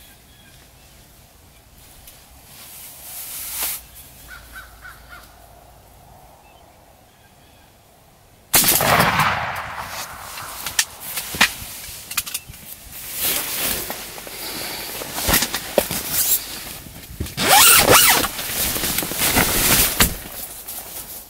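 A Benelli shotgun fires once, suddenly and very loud, partway through, at a tom turkey. It is followed by loud, irregular rustling and knocking.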